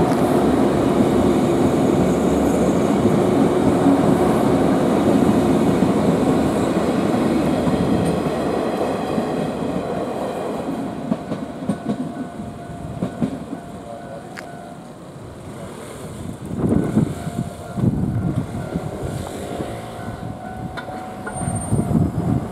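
A JR West 117 series electric multiple unit runs past close by, loud for the first several seconds and then fading as it moves away. After that, road vehicles pull across the level crossing, with a couple of louder passes in the second half.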